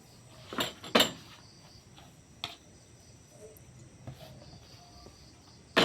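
Cooking pot and kitchen utensils knocking and clattering: a few sharp knocks, two close together about a second in, the louder one second, then one more at about two and a half seconds and another near the end.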